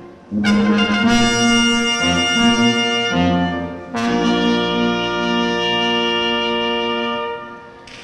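Brass ensemble of trumpets, trombone and tuba playing slow sustained chords, with a last long chord from about four seconds in that fades out near the end.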